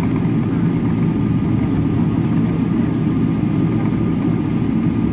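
Jet airliner's engines at taxi power heard from inside the cabin: a steady low rumble and hum with no change in pitch or level.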